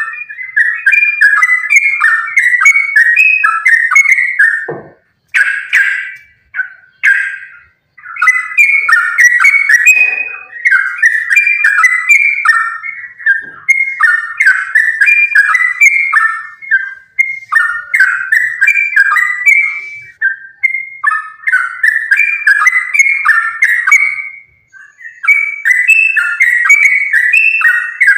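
Yellow-vented bulbul (trucukan) singing in fast, run-on chattering phrases, a rapid 'gacor' song used to provoke other bulbuls into singing. The song breaks off briefly twice.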